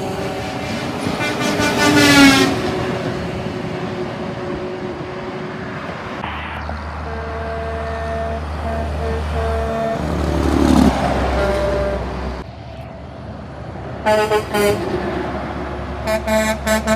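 Dump trucks passing on a highway, diesel engines rumbling, with truck horns sounding for the camera: a blast about two seconds in, and a string of short toots near the end. A passing vehicle's sound drops in pitch as it goes by just past the middle.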